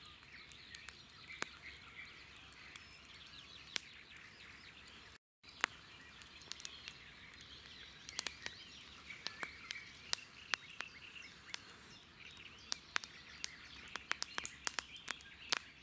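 Birds chirping and singing in the background, with many short sharp clicks and pops scattered through, more frequent in the second half; the sound drops out completely for a moment about five seconds in.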